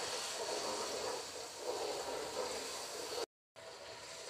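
Chopped onions and garlic-ginger paste sizzling in hot oil in a karahi while being stirred with a metal slotted spoon. The sound cuts out for a moment a little after three seconds in.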